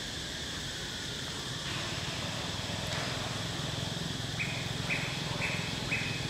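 Steady outdoor ambience with a low hum throughout. From about four seconds in, an insect chirps in an even rhythm, about two short high chirps a second.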